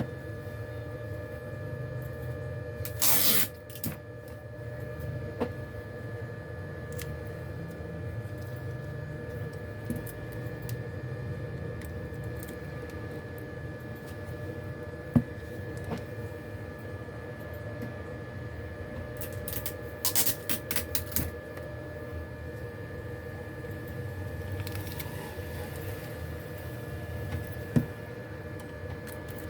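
Small repair tools handled on a workbench: a few light clicks and short scratchy strokes, one about three seconds in and a quick run of several near the two-thirds mark, over a steady electrical hum.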